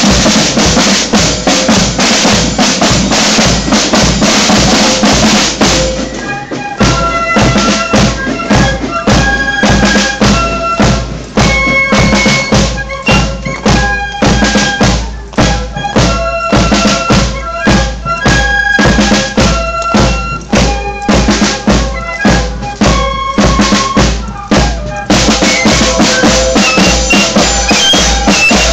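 Marching fife and drum band playing: side drums and a bass drum keep a steady marching beat, and the drums dominate for the first six seconds. The flutes then carry a clear melody in parts over the beat, and the texture grows denser again near the end.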